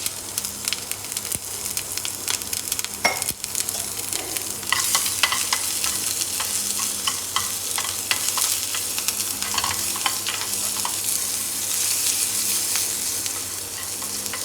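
Chopped small onions frying in a tempering of hot oil with mustard seeds, fenugreek and curry leaves. The oil sizzles while a spoon stirs and taps against the pan, and the sizzle grows louder about five seconds in.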